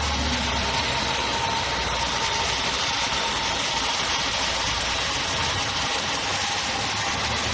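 Great Wall Voleex C30's 1.5-litre VVT petrol engine idling steadily with a ticking noise, heard up close in the open engine bay. A thin steady whine runs through the first few seconds and then fades.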